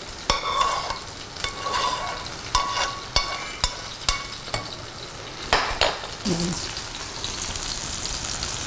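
Chopsticks scraping thickened stir-fry sauce out of a frying pan into a glass bowl, a run of separate scrapes and taps. From about seven seconds in, a steady sizzle of hot oil frying in a pan on the gas burner.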